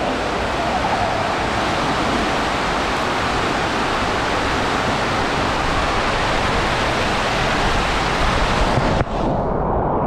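Loud steady rush of water as a ring float slides down inside an enclosed water slide tube. About nine seconds in the rush suddenly turns muffled.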